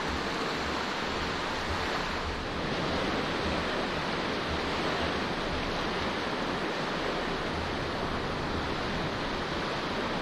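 Steady wash of small surf breaking along a sandy beach, mixed with wind, an even hiss with no distinct events.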